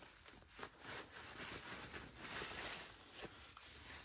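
Paper towel rubbing and crinkling against the nozzle of a caulk tube as it is wiped clean, in faint, uneven strokes.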